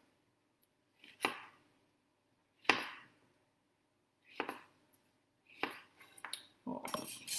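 A kitchen knife chopping a small zucchini into discs: four separate chops about a second and a half apart, then a few quicker, lighter ones near the end.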